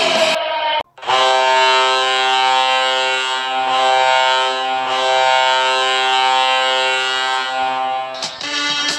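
Colorado Avalanche arena goal horn sounding one long, steady blast of about seven seconds. It starts just after a brief cut about a second in. It ends a little after 8 s, where the rock goal song kicks in.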